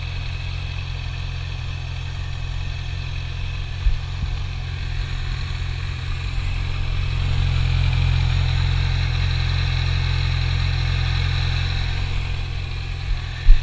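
2014 Yamaha YZF-R6 sport bike's inline-four engine idling steadily through its stock exhaust, the idle swelling slightly about seven seconds in and then holding. A sharp knock comes at the very end.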